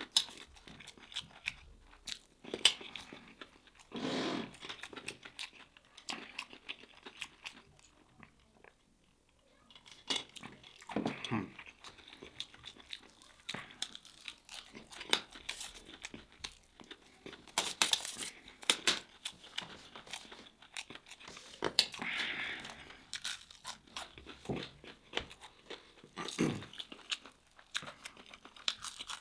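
Close-up eating sounds: crispy fried seafood, nut-coated fried fish and shrimp, being bitten into and chewed with many sharp crunches. There is a short quiet pause about nine seconds in.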